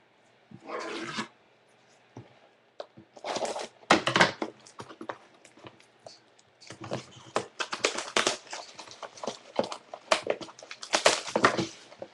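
Plastic wrapping crinkling and tearing in quick irregular bursts with small clicks, as a sealed box of trading cards is unwrapped and opened by hand.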